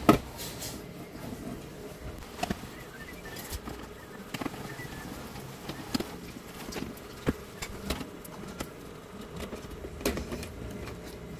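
Screwdriver work on a TV circuit board mounted on its metal chassis: screws being undone and the board handled, heard as scattered sharp clicks and taps at irregular intervals, the loudest right at the start.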